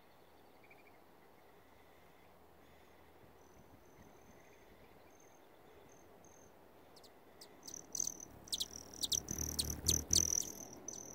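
A hummingbird flying close past: a high, buzzing trill broken by sharp ticks, with a low whirring hum from its wings. It starts about seven seconds in and is loudest around nine to ten seconds. Before that, only faint high chirping of insects or distant birds.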